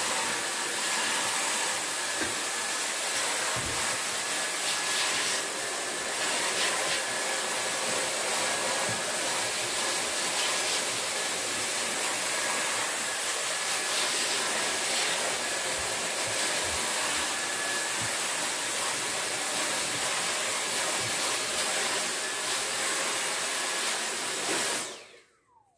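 Dyson V8 cordless handheld vacuum running steadily with a high-pitched whine as it sucks dust off a cloth vacuum filter. Near the end it is switched off and the motor winds down with a falling pitch.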